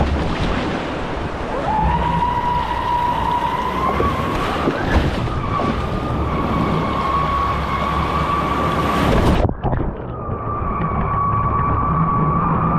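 Small electric motor of a radio-controlled bait boat whining steadily as it runs out over the water, with wind buffeting the microphone and surf. After a break about nine and a half seconds in, the whine comes back a little higher.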